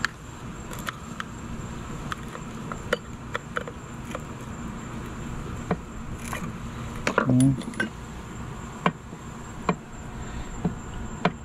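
Scattered sharp metal clicks and taps as a flat bar and screwdriver pry at the water pump plate and housing around an outboard lower unit's driveshaft, over a steady high insect trill.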